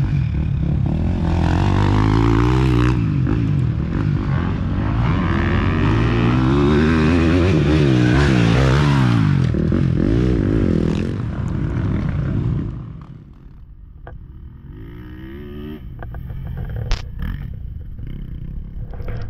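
Dirt bike engines revving hard as riders pass close by, the pitch rising and falling with throttle and gear changes. About 13 seconds in the sound drops away, then another dirt bike's engine rises as it approaches, with one sharp knock near the end.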